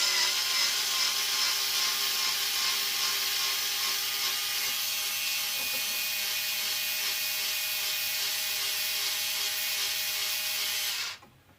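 Small electric screwdriver running steadily, backing out the 2 mm stock screws. It stops abruptly near the end.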